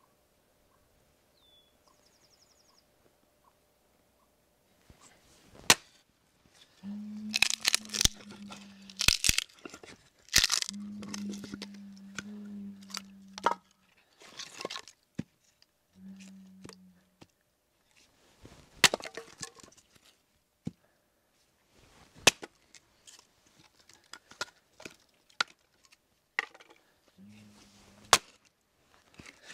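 Hatchet splitting firewood into kindling: after a few quiet seconds, a long run of sharp chops into the wood with cracking and tearing as pieces split off.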